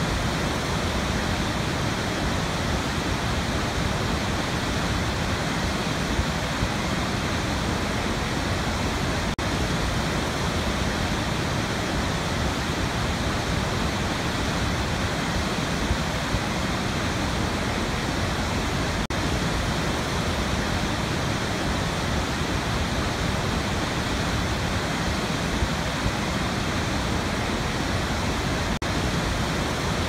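Large waterfall: a steady, even rush of heavy water pouring over a rim and crashing into a gorge.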